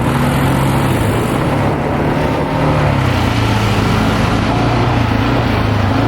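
ATV engine running under way, a steady hum whose pitch dips a little about two and a half seconds in and then picks up again.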